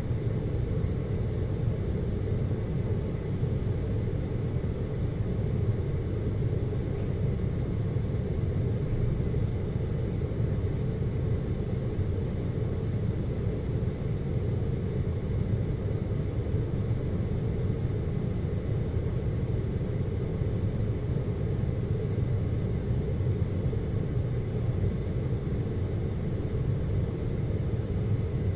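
Steady low rumble of the Seorak cable car in motion, heard from inside the cabin, with a faint steady high whine over it.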